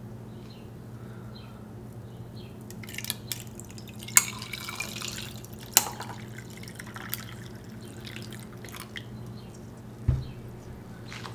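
Hibiscus water poured from a pitcher over ice cubes in a glass: a splashing pour with sharp clicks and cracks from the ice, over a low steady hum. A single dull knock comes near the end.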